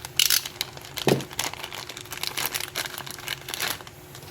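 Crinkling of a small plastic packaging bag being handled and opened, with irregular light crackles and clicks; it stops shortly before the end.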